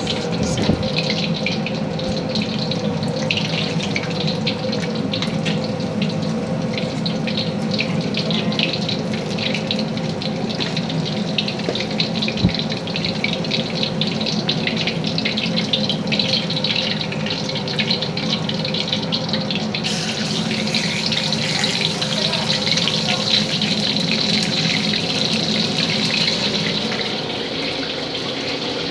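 Chicken burger patties frying in hot oil in a wok, a steady sizzle with dense fine crackling, over a steady low hum. The sizzle grows brighter about twenty seconds in.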